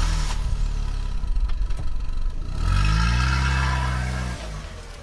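An engine running low, then revving up about two and a half seconds in, holding the higher speed, and dropping away shortly before the end.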